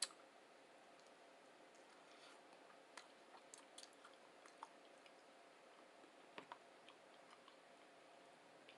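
Faint chewing of a breakfast burrito, close to the microphone: a sharp click at the start, then scattered soft mouth clicks and smacks.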